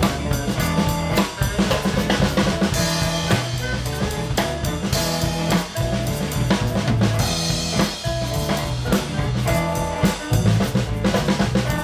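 Electric guitar and organ playing together over a steady drum beat, an instrumental passage with no singing.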